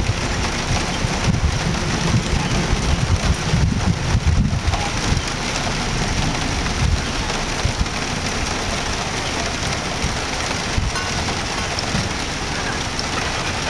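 Steady rain hissing, with a low thunder rumble over the first few seconds that then dies away.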